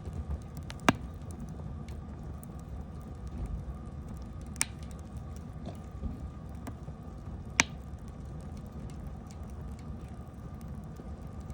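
Wood campfire burning with a low steady rush and crackling. Three sharp loud pops come about a second in, near the middle and about three-quarters through, with fainter ticks between.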